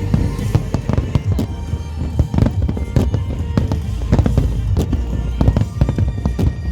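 Aerial fireworks bursting in quick succession, many sharp bangs a second, with music playing underneath.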